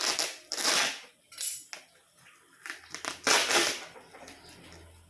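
Packing tape and wrapping being torn off a parcel, heard as about five rough rips and tears with short pauses between them.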